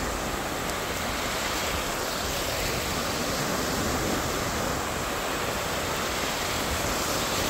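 Small surf waves breaking and washing over the shallows: a steady rush of surf.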